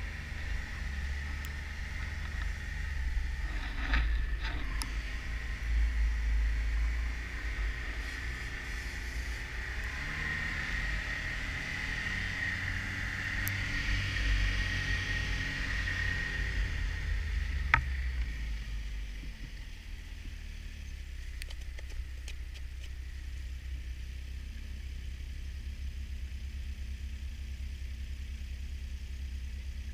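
Snowmobile engine running under way, with low rumble and buffeting on the microphone and a whining tone that rises for a while. A sharp click comes about 18 seconds in, after which the engine settles to a quieter, steady idle.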